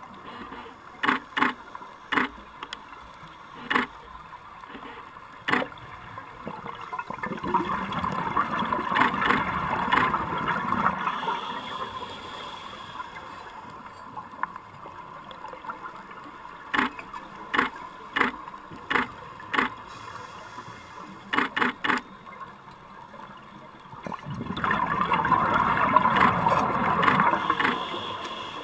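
Heard underwater through a camera housing: sharp clicks of an underwater still camera firing with its strobes, some single and some in quick runs of two or three. Twice a long bubbling rush of a scuba diver's exhalation through the regulator.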